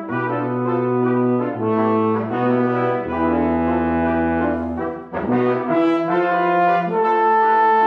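Brass quintet of two trumpets, French horn, trombone and tuba playing long held chords over low tuba notes. The chords break off briefly about five seconds in, then resume loud.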